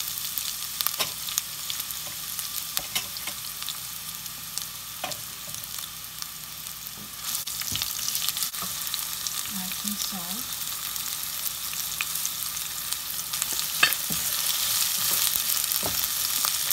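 Sliced onions sizzling in hot oil with whole spices in a nonstick pot, stirred with a wooden spatula that clicks and scrapes against the pan now and then. The sizzle grows louder near the end.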